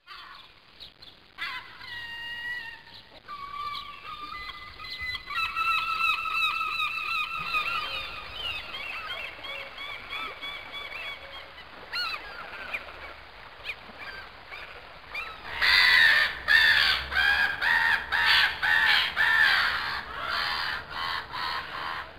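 Honking, squawking bird calls, several overlapping, becoming louder and quicker about two-thirds of the way in.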